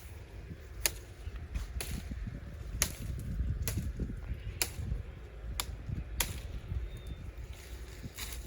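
A series of sharp strikes or snaps, about one a second and about eight in all, over a steady low rumble.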